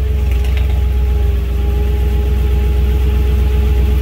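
Car engine idling steadily just after starting, a loud, low, even rumble with a steady whine over it.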